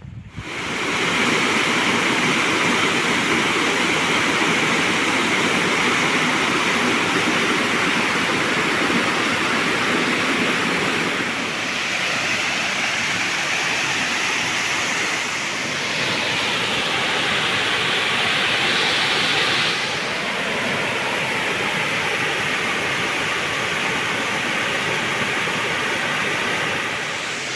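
Waterfall rushing: a steady, full noise of falling and splashing water. Its tone and loudness shift a little a few times.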